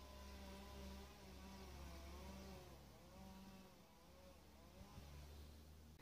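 Faint buzz of a flying insect, its pitch wavering slowly up and down, over a low steady hum.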